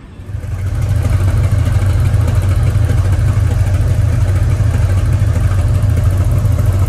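WDG6G diesel locomotive's GE twelve-cylinder engine running, a loud steady low drone that comes up within the first second and then holds even.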